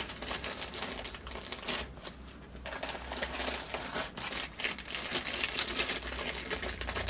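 Clear plastic bags holding resin model-kit parts crinkling and crackling as they are handled, in irregular quick crackles and clicks.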